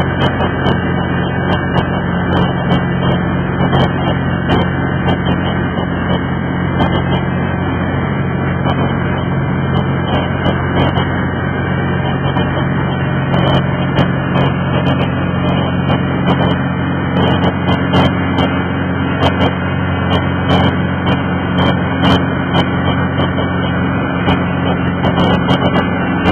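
Boat motor running steadily at constant speed, with a steady low hum and scattered small clicks or knocks over it.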